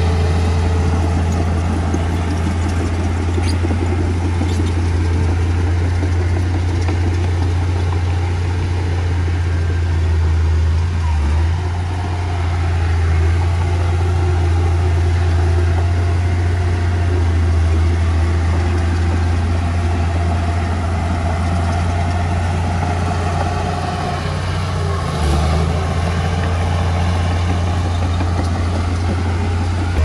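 Diesel engine of heavy earthmoving machinery running steadily, a deep low drone that dips briefly a couple of times.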